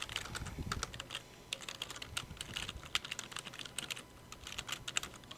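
Typing on a computer keyboard: a fast, irregular run of key clicks, with a short lull near the middle.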